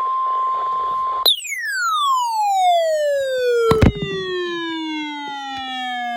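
Electronic emergency alert audio: a steady single-pitch alert tone cuts off about a second in, followed by a long electronic tone falling smoothly in pitch over about five seconds, with a sharp click partway through. A second falling tone starts right at the end.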